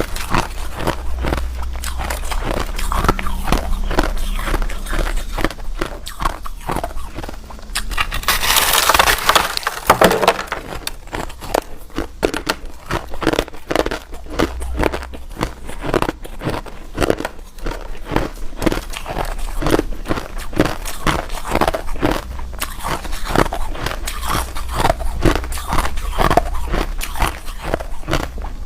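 Close-miked biting and chewing of hard ice: a continuous, irregular run of sharp crunches and crackles, with a louder, denser crunching stretch about eight to ten seconds in.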